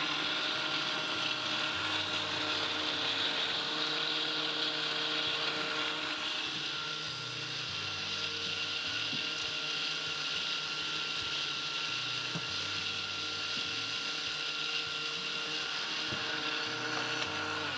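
Countertop blender motor running steadily, liquidizing watermelon, orange and pineapple into a thin juice, with a constant whine over the churn of the fruit.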